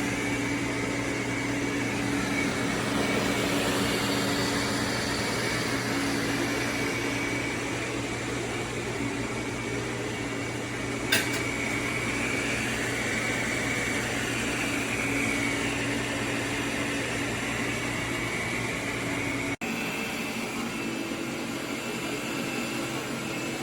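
AIRROBO T20+ robot vacuum running, a steady motor hum with a higher whine that wavers in pitch. A single sharp click comes about eleven seconds in.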